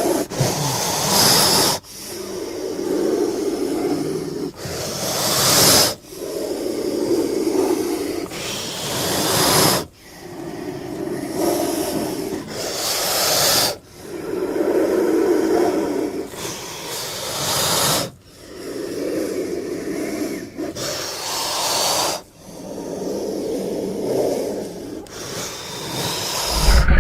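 Giant-snake creature sound effect: a string of breathy, raspy hisses, each a few seconds long and ending in an abrupt cut, with sharp high hissing over a lower rasp.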